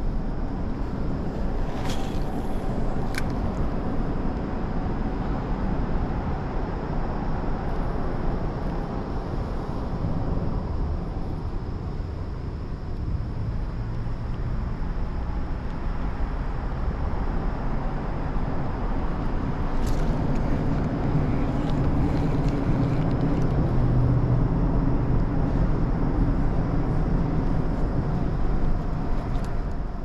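Steady rumble of road traffic on a nearby bridge, swelling louder in the second half as vehicles pass, with a few light clicks.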